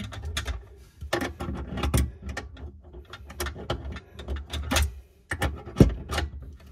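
Hand tools clicking, knocking and scraping against metal and plastic plumbing fittings under a sink as a wrench works a nut, in irregular sharp knocks with the loudest just before the end.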